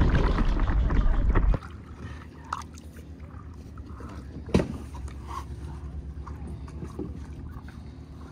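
Wind buffeting the microphone on open water for the first second and a half, cutting off abruptly. After that come quiet water sounds as a paddle strokes through shallow water beside a stand-up paddle board, with a single sharp knock about four and a half seconds in.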